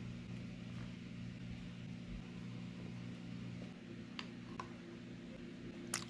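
Faint steady low electrical hum of room tone, with a few faint light clicks a little past halfway and near the end.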